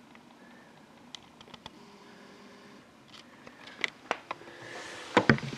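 Light, scattered clicks and handling noise from a shrink-wrapped box of trading cards being handled, with a short plastic crinkle about five seconds in.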